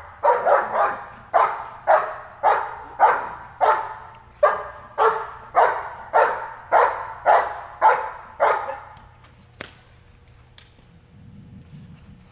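A dog barking steadily and repeatedly at a helper hidden in a blind, the bark-and-hold of protection-dog sport: about two barks a second, stopping about three-quarters of the way through. A single sharp click follows.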